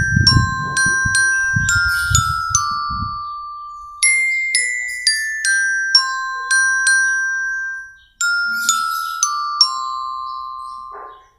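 A melody picked out on a glockenspiel: quick single struck notes that ring briefly, stepping downward in three short phrases with a break before each restart. Low dull thuds sound under the first phrase.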